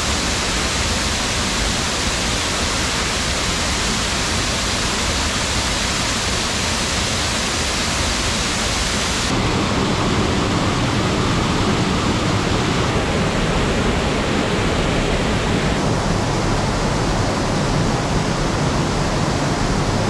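Waterfall on a river swollen by heavy rain, a loud steady rush of falling water. About halfway through the rush turns fuller and deeper, heard close to the falling water.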